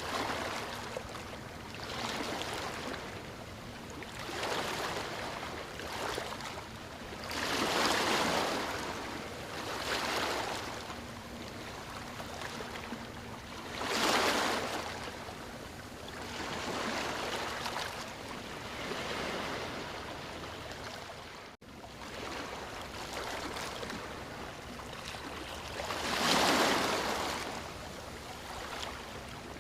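Waves breaking and washing up a beach, a rush of surf swelling and fading every few seconds, with the biggest surges about a quarter of the way in, halfway, and near the end. The sound drops out for an instant about two-thirds of the way through.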